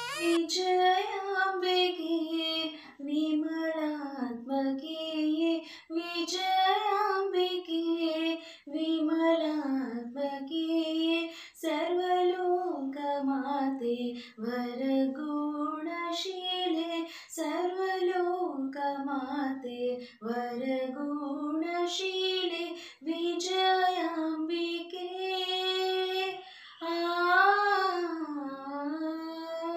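A woman singing alone, unaccompanied, a gliding melody in phrases with short breaks between them.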